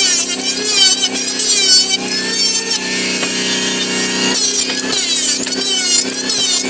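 Modern M2920 electric hand planer running under load as it shaves along a wooden beam: a steady motor whine with a higher cutting whine that wavers as it bites into the wood, briefly interrupted a little past four seconds in as the planer is lifted and set down again.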